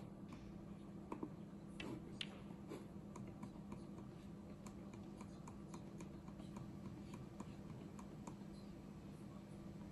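Computer keyboard being typed on: quick, irregular light clicks, a few each second, over a faint steady hum, with a couple of sharper clicks in the first two and a half seconds.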